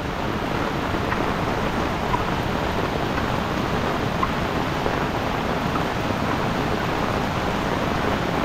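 Steady rushing of a muddy river in flood, mixed with heavy rain pattering on an umbrella overhead.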